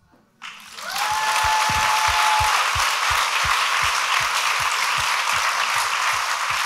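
Audience applause building up just after the start and then holding steady. A single whistle rises and holds its pitch for about a second and a half early in the applause, and a regular low thump runs under it about four times a second.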